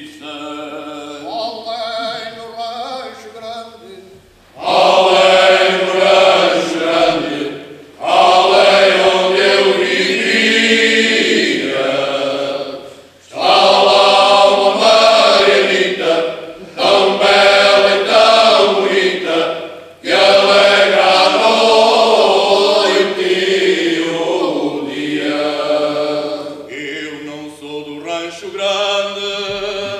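Male choir singing traditional Alentejo cante, unaccompanied in several voice parts. A quieter opening phrase gives way about four seconds in to the full choir singing loudly, in long phrases with short breaths between them, softening again near the end.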